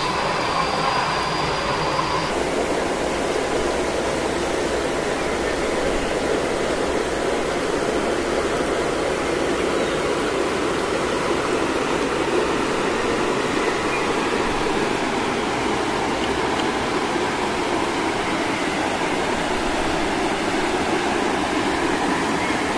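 Steady rush of flowing water from a stream or small waterfall, an even hiss with no breaks.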